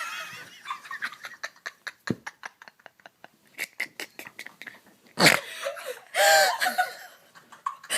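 People laughing: a run of short, stifled snickers, then a louder laugh about six seconds in.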